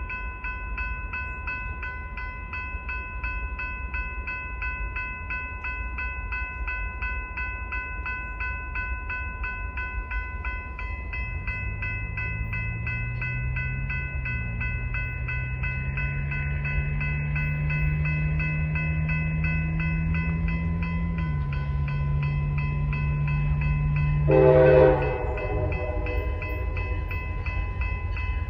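Railroad grade-crossing bell ringing steadily as an approaching CSX diesel freight train sounds its horn, faint and low at first from about 11 seconds in, then a short, louder horn blast about 24 seconds in.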